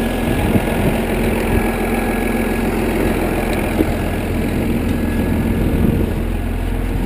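PistenBully snow groomer's diesel engine idling steadily.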